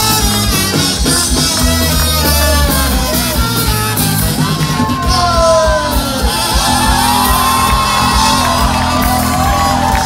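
Live band with saxophone, trumpet, electric guitar and drums playing, with the crowd shouting and yelling over the music.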